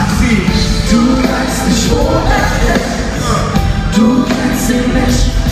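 Live concert music: a band playing a pop-rap song with a heavy bass, a voice singing over it.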